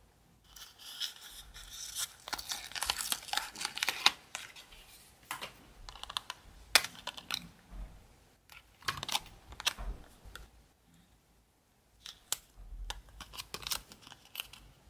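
Sticker-backed paper nail forms being peeled and pressed together by hand: crinkling and peeling paper, densest in the first few seconds, then scattered sharp crackles as the forms are bent into a curve.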